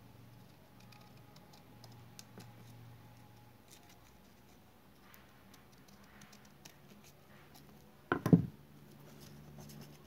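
Scissors snipping through paper strips in small, scattered clicks and cuts, trimming a woven paper fish. A single louder thump about eight seconds in.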